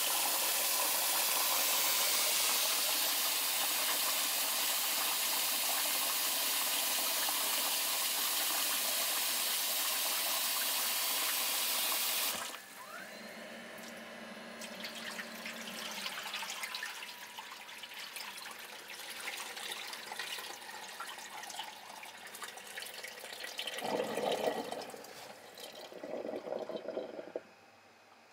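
Tap water running into a stainless bowl of salmon roe being rinsed by hand, a steady rush that cuts off suddenly about twelve seconds in. After that, quieter water sloshing as the bowl is swirled and drained in the sink, with two louder swells near the end.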